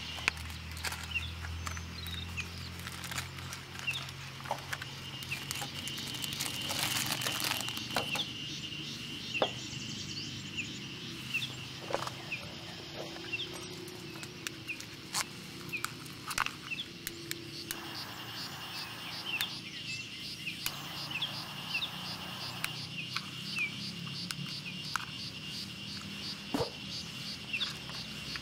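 Forest ambience of birds chirping and insects calling steadily, with a fast ticking insect trill in the second half. Scattered light clicks and taps come from small objects being handled on a wooden table.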